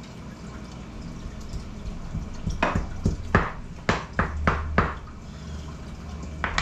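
A run of about seven sharp, uneven knocks on a wooden cutting board, starting a little over two seconds in and lasting about two seconds, over a low steady hum.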